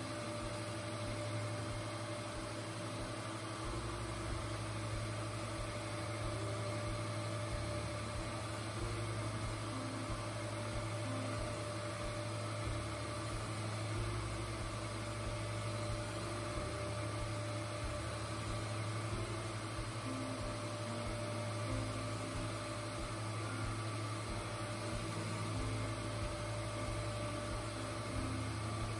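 Rockwell Delta surface grinder running, its spindle motor and wheel giving a steady low hum.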